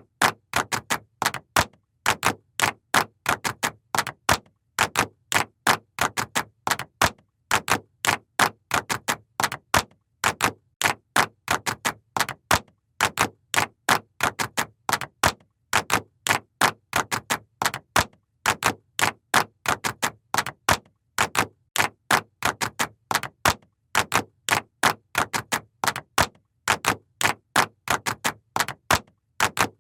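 A sound effect of sharp, dry clicks in quick uneven runs, about three to four a second, with silence between each click.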